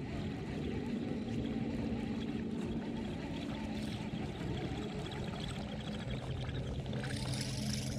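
Water trickling and lapping against a fishing kayak's hull, with a low steady hum underneath that shifts to a lower pitch about six seconds in.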